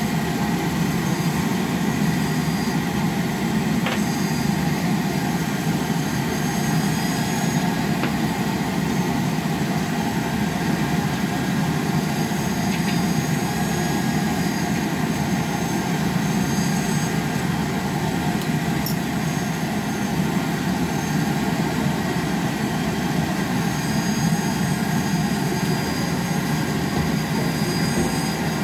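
Steady, even rushing noise from a stovetop wok stir-fry, with a few faint clicks.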